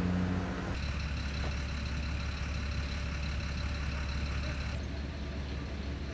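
Steady low engine rumble of vehicles idling, with a faint steady high whine over it that stops about five seconds in.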